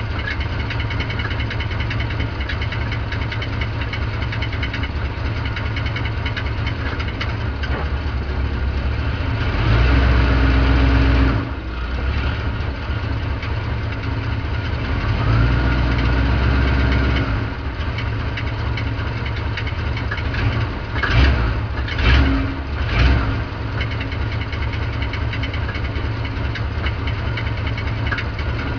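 Mopar automatic-transmission car idling in Park with the noise of a flexplate whose bolts are working loose. It swells louder for a couple of seconds about ten seconds in and again around sixteen seconds, with a few short surges a little past twenty seconds.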